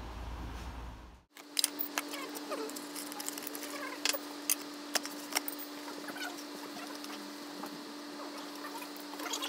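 A low rumble cuts off about a second in. Then a steady hum runs under scattered light clicks and taps of hands working the oil drain bolt loose on a Honda HSS760n snowblower's engine.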